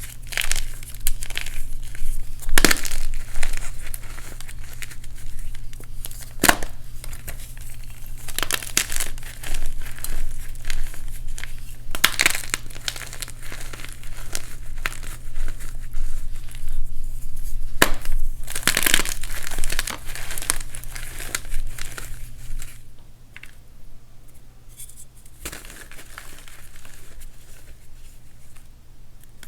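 Reformed blocks of dyed MagKing gym chalk being crushed by hand: crumbly crunching and crackling with repeated sharp snaps, quieter near the end.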